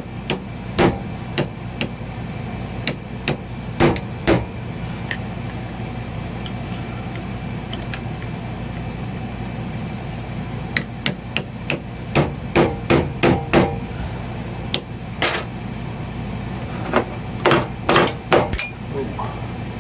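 Irregular metal-on-metal hammer blows on a tool, knocking a metal-clad wiper seal out of a hydraulic bead breaker cylinder. The blows come singly at first, then in quick runs about twelve seconds in and again near the end, over a steady low hum.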